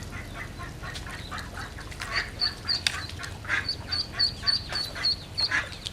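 Ducklings peeping: many short, high peeps repeated in quick runs, with several louder calls from about two seconds in.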